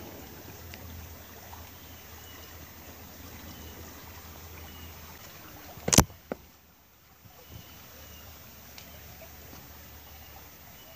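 Shallow creek water trickling steadily over rocks and stone slabs. About six seconds in there is one sharp, loud knock, with a smaller one just after.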